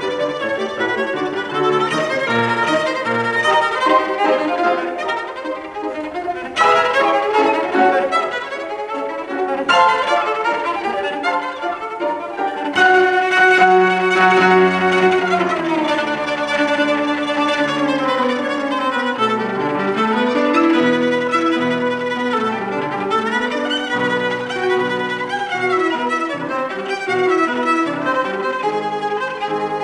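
Cello played with the bow, with piano accompaniment: a continuous passage of many notes with sliding shifts in pitch.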